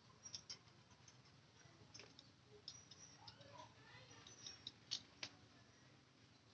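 Near silence with faint scattered small clicks and ticks, the two sharpest a little before and just after the five-second mark.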